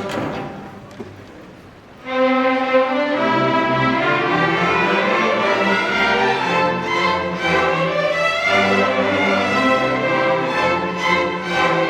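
Middle school string orchestra playing: a chord dies away into a short pause, then about two seconds in the full ensemble of violins and lower strings comes in together and plays on in sustained chords.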